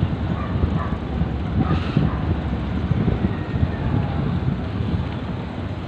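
Wind buffeting the microphone over the steady rumble of a moving vehicle, with the camera held out over the vehicle's roof.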